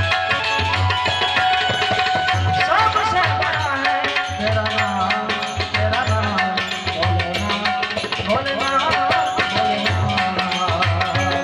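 Live Indian devotional folk music: a harmonium sustains steady notes while a tabla-like hand drum beats a steady rhythm under quick metallic percussion. A male voice sings phrases twice, a few seconds in and again later on.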